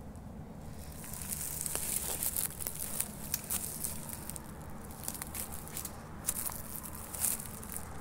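Footsteps crunching and rustling through dry pine needles and grass, a dense run of crackling clicks starting about a second in.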